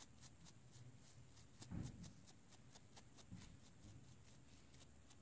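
Faint, quick scrubbing strokes of a small brush cleaning corrosion off an iPhone 6 display's flex-cable connector, about four or five strokes a second, with a soft handling bump about two seconds in.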